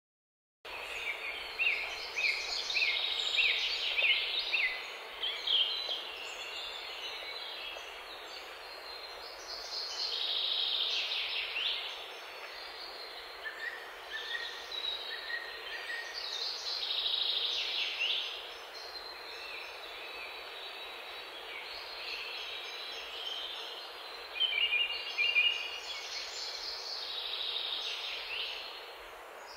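Several birds chirping and singing over a steady outdoor hiss, the calls coming in clusters every few seconds.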